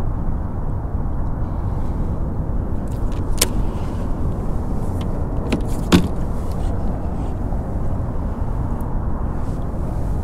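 Steady low rumble of wind and water around a small fishing boat, with two sharp knocks: a light one about three and a half seconds in and a louder one about six seconds in, as the fishing rod is set into its rod holder on the boat.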